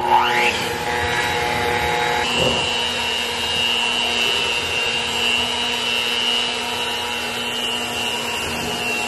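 Cuisinart electric hand mixer running steadily, its beaters whirring through a batter of butter, brown sugar, eggs and vanilla. The motor's whine changes pitch about two seconds in, then holds steady.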